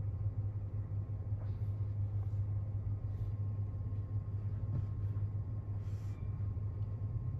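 Steady low hum heard from inside a car's cabin as it waits in a tunnel car wash, with a few faint clicks along the way.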